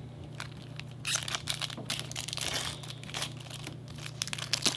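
Foil Magic: The Gathering Modern Masters booster pack wrapper crinkling and tearing as it is opened by hand. The irregular crackling starts about a second in, with a sharp snap near the end.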